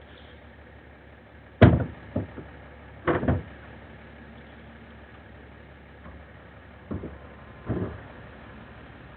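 Hollow knocks and thumps from a plastic wheeled recycling bin being handled and tipped: a loud one about a second and a half in, then several more over the next six seconds. A steady low hum runs underneath, all heard through a security camera's narrow-band microphone.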